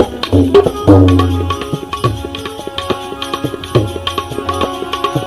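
Instrumental break in a Gujarati devotional bhajan: hand-drum strokes with deep booming bass over steady sustained melodic accompaniment.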